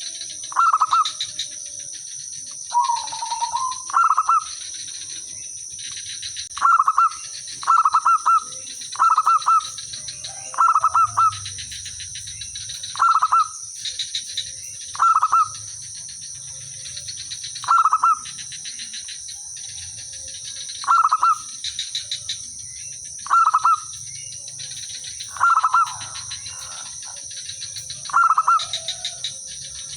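Zebra doves cooing: short trilled calls, repeated every one to two seconds, with birds answering one another.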